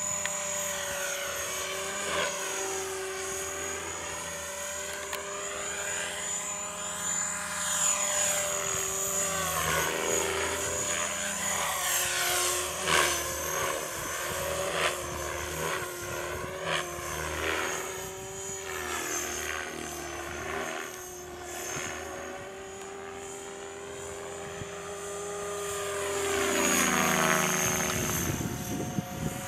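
Align T-Rex 500 electric radio-controlled helicopter flying aerobatics: a steady motor whine and rotor buzz that sweep up and down in pitch as it moves about, growing louder near the end as it passes closer.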